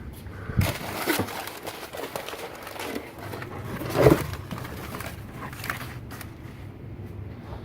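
Handling noise: a few light clicks and knocks, the loudest about four seconds in, with faint rustling between them.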